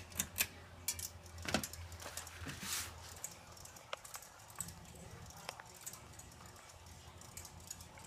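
Hunter Silent Breeze 42-inch ceiling fan just switched on at low speed, its motor running with a faint steady low hum as the blades come up to speed. Light clicks and rattles sound over it, mostly in the first three seconds.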